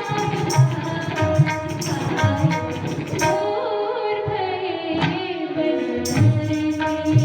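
Hindi song with tabla accompaniment: a woman's sung melody over steady tabla strokes. The tabla drops out for about three seconds in the middle under a held, wavering note, then comes back in.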